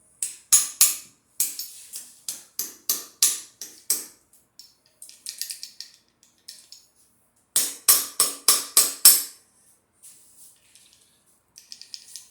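Runs of sharp metal-on-metal hammer strikes on stuck engine parts, about three a second, with a pause between two main runs and softer taps in between.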